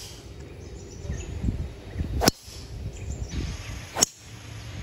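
Golf driver striking a ball off the tee twice, a sharp crack each time, the second about a second and three-quarters after the first.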